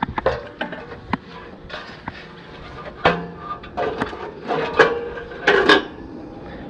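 Irregular sharp clicks and clunks of metal parts and tools being handled while reassembling an air-conditioning condenser. The loudest knocks come about three seconds in and again between four and six seconds in.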